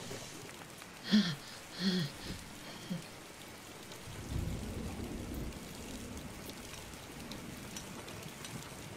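Water running from a bathtub tap into a filling tub, a steady splashing hiss. Two short, loud sounds with a falling pitch come about one and two seconds in.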